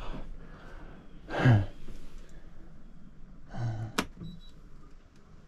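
A man's short voiced exhale, falling in pitch, about a second and a half in, and a weaker one just before four seconds. Then a sharp click at about four seconds as a switch on the sailboat's electrical panel is flipped, followed by a faint short high beep.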